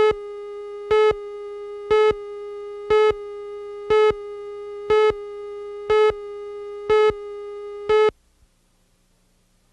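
Countdown leader of a broadcast videotape: one steady tone with a louder beep on each second, nine beeps in all as the count runs down from ten to two. The tone cuts off about eight seconds in, leaving near silence.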